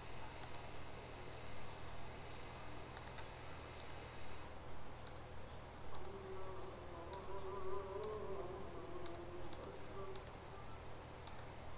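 Computer mouse button clicking, a dozen or so short sharp clicks spread through, many in quick pairs, over quiet room noise.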